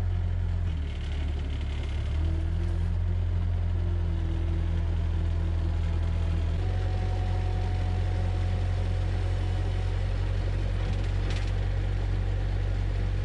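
Bobcat 751 skid-steer loader's diesel engine running steadily while its loader arms lift a large log and set it down. The engine note shifts slightly a couple of times.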